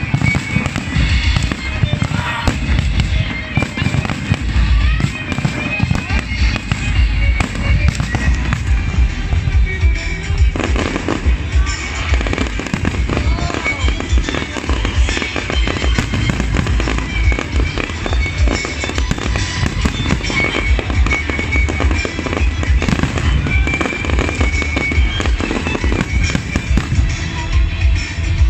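Aerial fireworks display: a continuous, rapid barrage of booming shell bursts and crackling, with music playing alongside.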